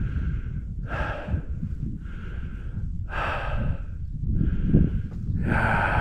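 A hiker breathing hard, short audible breaths about one a second, out of breath on an uphill mountain trail.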